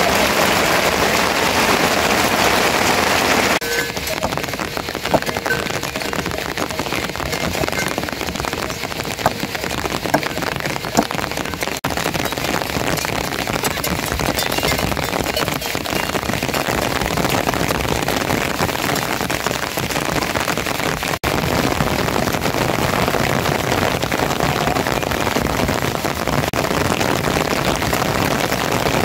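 Steady rain falling on surfaces, an even hiss, with a few sharp taps between about 5 and 11 seconds in. The rain drops in level about 3.5 seconds in and grows louder again around 21 seconds.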